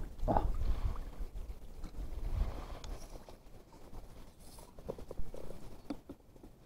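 Wind buffeting the microphone as a low rumble, heaviest in the first second, with a few short knocks and clicks of handling.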